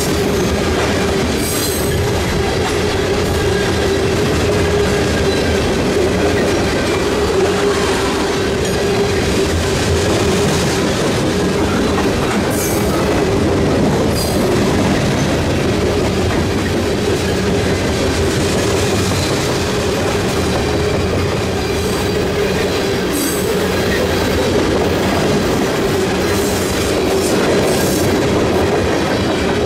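Freight cars, mostly tank cars, rolling steadily past at close range: wheels clattering over rail joints with occasional short squeals and clanks. A steady ringing tone from the grade crossing's mechanical bell sounds over the clatter.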